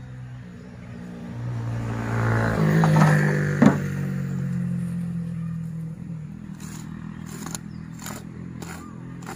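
A small engine speeding up over the first three seconds, then running steadily. There is a sharp knock about three and a half seconds in and a few short clicks near the end.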